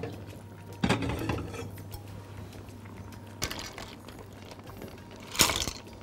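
Kitchen cookware clattering: a glass pot lid and a spatula clinking against a pan three times, about a second in, at about three and a half seconds and near the end.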